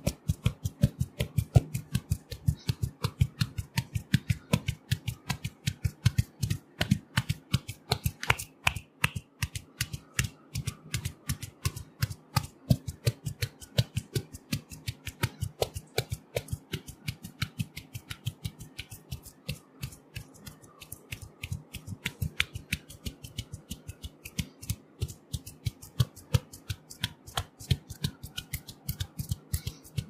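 Hair cracking during an Indian head massage: locks of hair twisted and pulled between the fists, making quick, crisp crackling snaps several times a second without a break.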